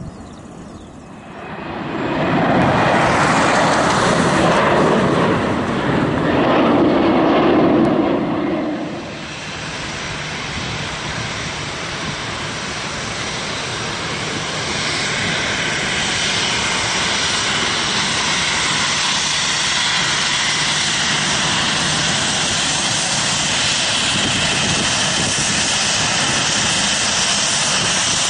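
Jet airliner engines. A loud rumbling roar lasts about seven seconds, then drops to a steadier engine noise with a high whine that slowly grows louder.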